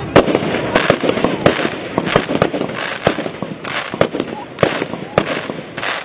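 Aerial fireworks bursting in quick succession: an irregular string of sharp bangs and crackles, several a second.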